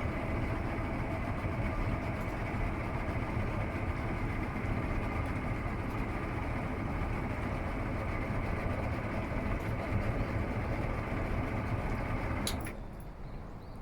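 200-horsepower two-stroke outboard motor idling steadily, then stopping near the end with a click.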